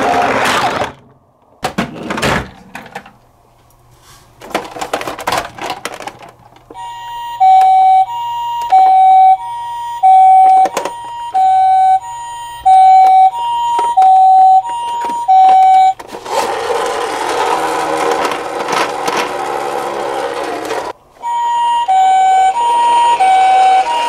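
Toy ambulance's electronic two-tone siren, a high and a low note alternating steadily. It is preceded by clicks and knocks of the plastic toy being handled, and the siren breaks off for a few seconds of rushing noise before it starts again near the end.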